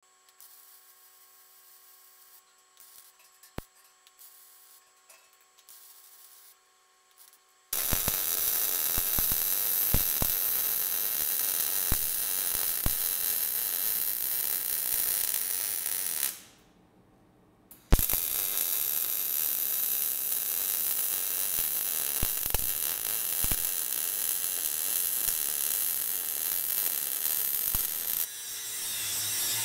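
A quiet stretch with a faint hum and a single click. Then a MIG welder's arc crackles steadily on steel plate in two runs, about eight and ten seconds long, with a short pause between. An angle grinder starts up near the end.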